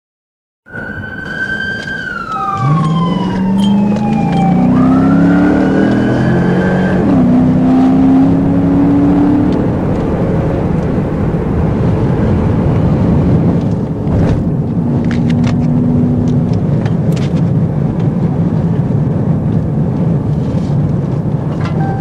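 A police cruiser's siren starts up and wails once, falling and then rising, while the cruiser's engine speeds up in steps under hard acceleration. Then comes steady loud engine and road noise inside the moving patrol car, with a few sharp clicks midway.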